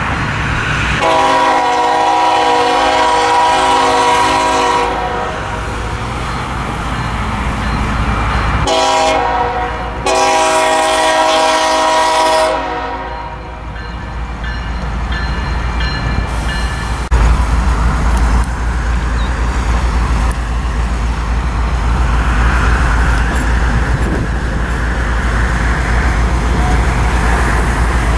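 Union Pacific diesel locomotive sounding its multi-chime air horn in two long blasts a few seconds apart, the second split by a brief break. Its diesel engine rumbles underneath, getting louder in the second half as the locomotive draws close.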